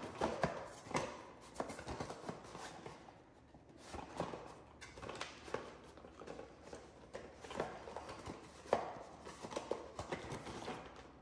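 Cardboard packaging being handled: irregular light taps, knocks and scrapes as a small boxed infusion set is turned over and its flap opened.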